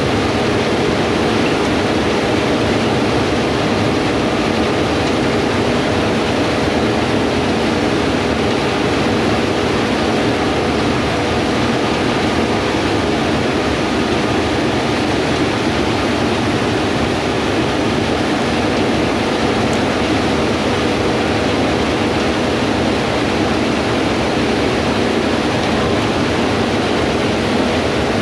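Heavy diesel farm machinery running steadily under load: a constant, unchanging drone with a few faint steady hum tones, with no starts, stops or changes.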